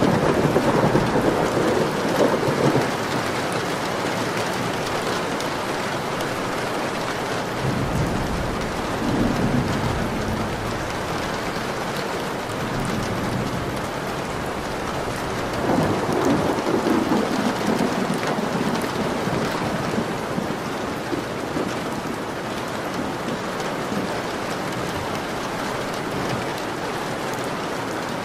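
Steady rain falling, with rolling thunder rumbling up three times: at the start, about eight seconds in, and again about sixteen seconds in.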